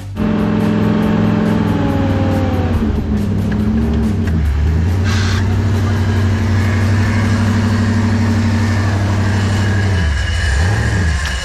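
Jeep CJ Renegade's engine running steadily under load as it is winched up a steep dirt climb. Its pitch dips briefly a few seconds in and again near the end, with a short hiss about five seconds in.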